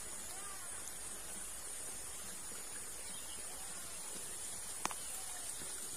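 Quiet outdoor countryside ambience: a steady high hiss, with one sharp click about five seconds in.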